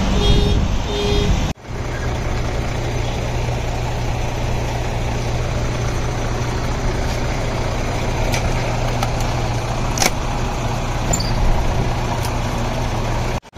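Heavy vehicle engine running steadily with a constant low hum. Two short beeps sound in the first second and a half, followed by a brief dropout, after which the engine runs on alone.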